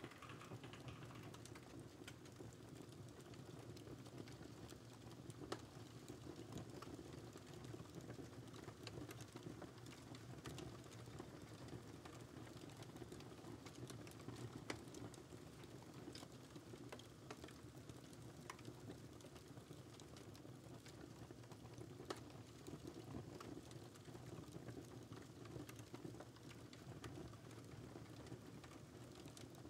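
Quiet typing on a computer keyboard, mixed with a recorded crackling fireplace: a steady low fire noise under scattered clicks and crackles, with a few sharper pops.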